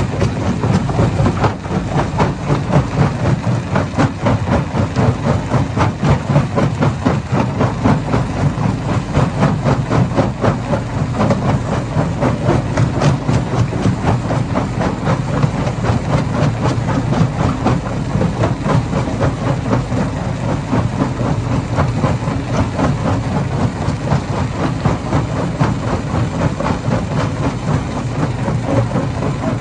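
Hammer-type stone crusher running under load, with a dense, continuous clatter of rocks being broken over its low, steady machine noise.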